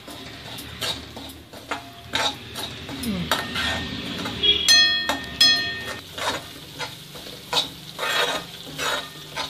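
A spoon stirring and scraping semolina roasting in ghee in a steel kadai, with a light sizzle under repeated scraping strokes; twice, about five seconds in, the spoon rings against the pan's metal side. This is the semolina being roasted until its raw smell goes.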